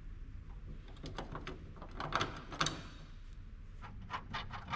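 Metallic clicks and clinks of bolts and nuts being fitted to a steel lifting bracket and snugged up by hand, not fully tightened. The clicks come in irregular runs, sharpest about two seconds in, with more near the end.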